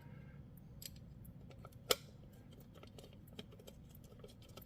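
Faint clicks and taps of small metal parts being handled while felling dogs are fitted onto a chainsaw, with one sharper click about two seconds in.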